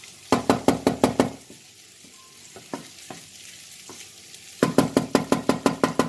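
Wooden spoon stirring rice as it toasts in a pot, in two spells of quick knocks and scrapes about seven a second, with a few single taps between.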